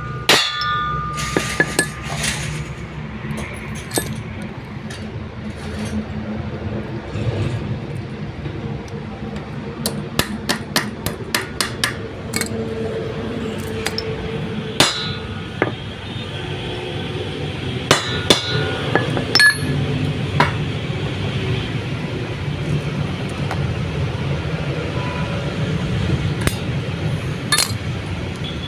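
Hammer blows on metal, some in quick runs of several strikes, over a steady low hum: hammering a new universal-joint cross into a propeller shaft yoke.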